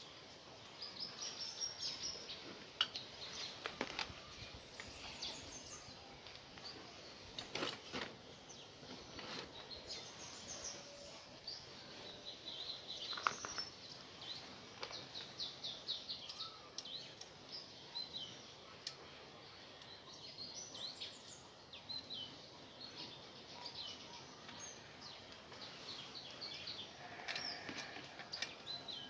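Small birds chirping over and over in the background, with a few sharp clicks and knocks from a metal bicycle being handled, the loudest about thirteen seconds in.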